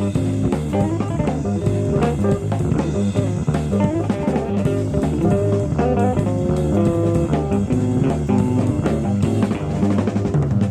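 Live jazz-fusion band playing: electric guitar lines over drum kit and bass guitar. It is a cassette tape recorded off an FM broadcast, with the top end cut off.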